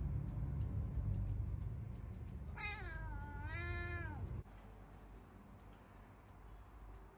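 A domestic cat gives one drawn-out meow in two parts, wavering in pitch, about two and a half seconds in. Under it runs a low rumble close to the microphone, which cuts off suddenly about four and a half seconds in.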